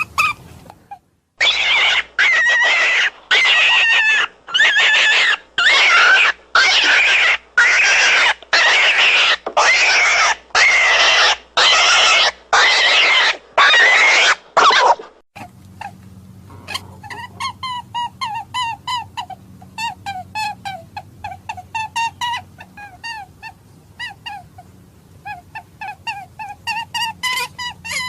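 Recorded rabbit distress call for hunting: about thirteen harsh, wavering screams, each under a second and about a second apart. After them, from about halfway through, comes a rapid run of short high squeaks.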